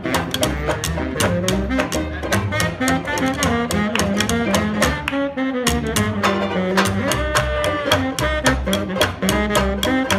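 Small acoustic street jazz band playing an instrumental stretch: a saxophone plays the melody over a walking upright bass and strummed banjo, with hand claps on the beat.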